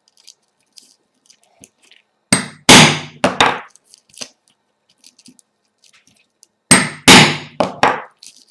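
Hammer blows driving a hollow hole punch through velcro backed by cardboard: two rounds of about four sharp strikes, a few seconds apart, each round cutting one hole.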